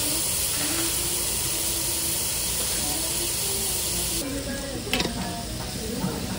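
Marinated pork ribs sizzling on a hot tabletop barbecue grill plate, a steady hiss that thins out about four seconds in, with a sharp click about five seconds in and faint voices underneath.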